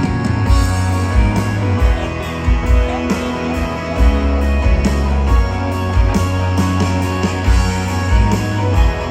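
Rock band playing live without vocals: electric guitars over bass and a steady drum beat.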